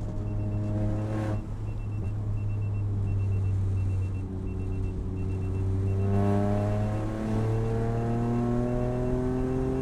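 Toyota GR Yaris's turbocharged three-cylinder engine pulling hard through the gears, its pitch rising steadily, dropping at an upshift about a second in and again about seven seconds in, then climbing again.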